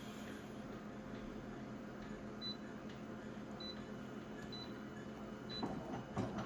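A photocopier's control panel beeping short and high as its buttons are pressed, about four times, over the machine's steady low hum; a couple of handling knocks near the end.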